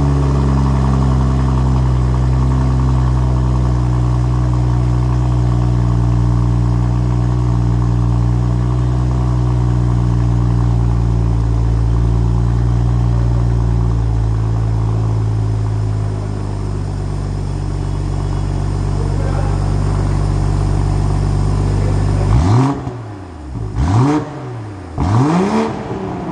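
BMW M340i's B58 3.0-litre turbocharged straight-six idling through a newly fitted Milltek downpipe and full exhaust system, its idle dropping a little past the middle. Near the end it is revved in three quick blips, each rising and falling in pitch.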